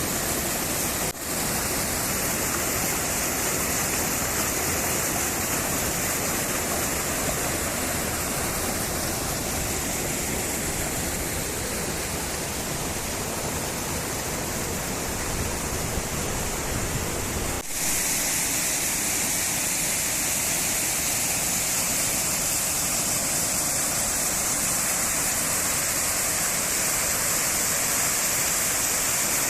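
Waterfall water falling and splashing over rocks in a steady, unbroken rush. It drops out briefly about a second in and again about two-thirds of the way through, and is a little brighter and hissier after the second break.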